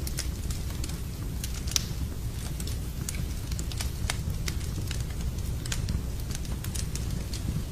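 Wood fire in a fireplace crackling, with irregular sharp pops and snaps, a louder one about two seconds in, over a steady low rumble.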